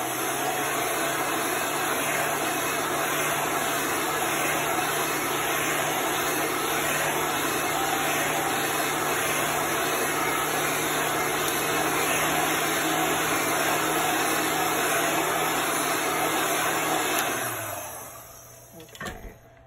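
Handheld hot-air dryer running steadily with a whirring fan and motor hum as it dries wet chalk paste on a transfer. It is switched off about three-quarters of the way through and winds down.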